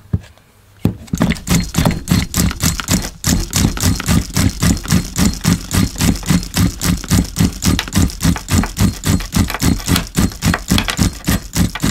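Small nitro RC engine being turned over by its starter without firing: a steady mechanical chugging of about four or five pulses a second, starting about a second in. The owner takes the failure to start for a worn-out engine with no compression.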